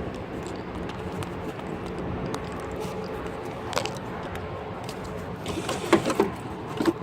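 A few sharp clicks and knocks of hand-held equipment being handled, over a steady background hum.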